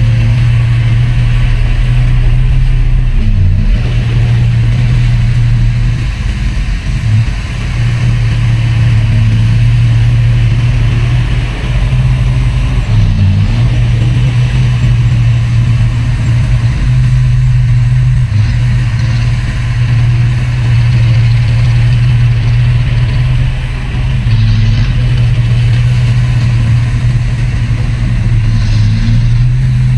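Heavy diesel earthmoving machinery running steadily under load, a constant low engine drone with a few brief dips.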